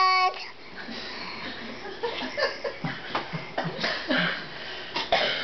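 A toddler's long, high vocal note breaks off just after the start, followed by scattered short breathy sounds, small vocal noises and light chuckles.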